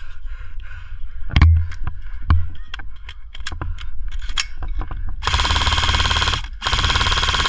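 Airsoft guns firing: scattered single shots and sharp cracks, then about five seconds in a long rapid full-auto rattle from an electric airsoft rifle that breaks off briefly and starts again.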